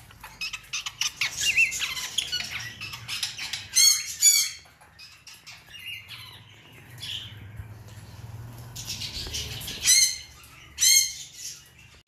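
Pet parrots chirping and squawking. A busy run of high chirps gives way to two loud squawks about four seconds in, and two more near the end.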